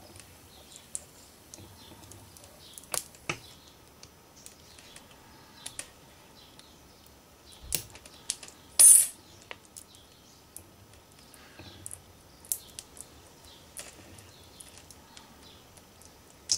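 Utility-knife blade prying and cutting at the plastic housing of a USB connector: scattered small clicks and scrapes, with one loud, short scrape or snap about nine seconds in.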